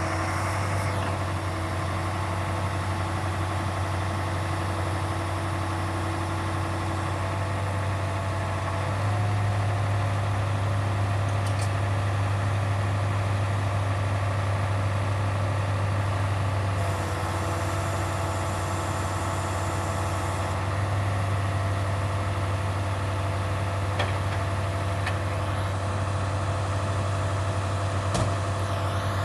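Truck engine running steadily while powering an ОМТЛ 70-02 hydraulic timber loader crane, its hum growing and easing a few times as the load on the hydraulics changes. A couple of short knocks near the end.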